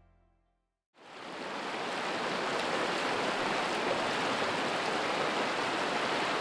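Shallow mountain river rushing over rocks and stones in fast rapids: a steady rush of flowing water that starts about a second in, after a moment of silence.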